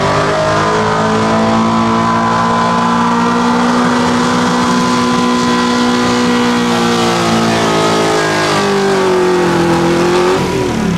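Pickup truck engine held at high revs at full throttle while pulling a weight-transfer sled, its note steady and straining; the revs fall and waver near the end as the pull ends and the truck stops.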